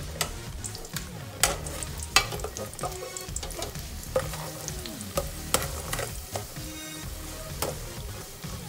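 Minced garlic sizzling in hot oil in a metal pot, stirred with a slotted metal turner that scrapes and clinks irregularly against the pot. The sharpest clink comes a little past two seconds in.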